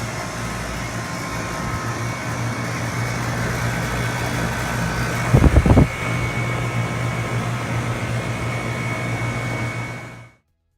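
A three-ton Goettl air conditioning unit running, its fan and compressor giving a steady hum with a thin high whine over it. A brief cluster of loud low thumps comes a little past halfway, and the sound cuts off near the end.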